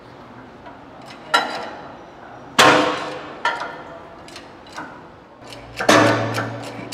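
Sharp metallic clanks, about five at uneven intervals and each ringing briefly, the loudest about two and a half seconds in, as a hydraulic shop press is pumped and its ram forces parts down into an industrial shredder gearbox's bearing bore. Near the end, background music with a low steady tone comes in.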